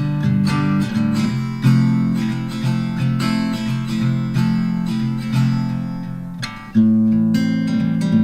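Intro music played on acoustic guitar, steadily strummed and plucked, with a brief drop and a fresh strum about seven seconds in.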